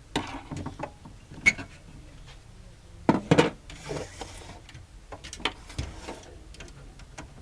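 Irregular clicks and knocks, with the loudest cluster of knocks about three seconds in and a short hiss just after.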